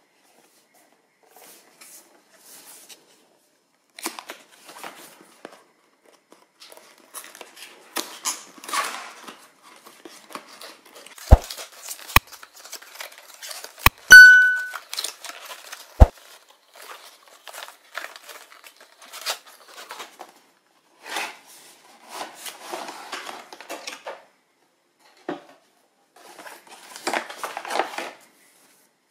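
Cardboard box and packaging of a Logitech G403 gaming mouse being handled and opened: rustling and scraping of cardboard and plastic in uneven bursts. A few sharp taps come around the middle, along with a short high squeak, the loudest moment.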